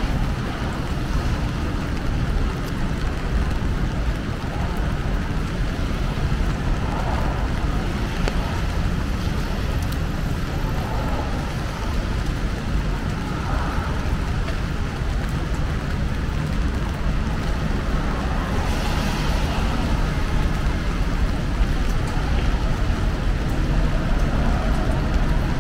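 Rainy city street ambience: a steady wash of rain and road traffic noise, with no single event standing out.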